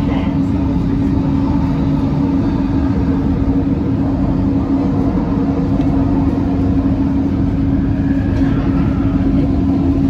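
Interior of a Kelana Jaya Line light-rail train running between stations: a steady rumble of wheels and running gear with a constant hum from the traction drive.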